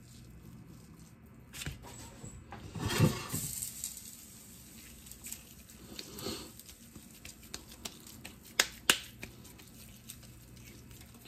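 Hands squeezing and patting raw ground beef into a burger patty: soft, wet squishing and patting, with a louder squelch about three seconds in and two sharp pats in quick succession a little over eight seconds in.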